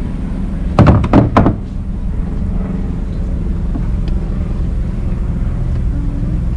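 A quick run of three or four loud knocks about a second in, over a steady low hum.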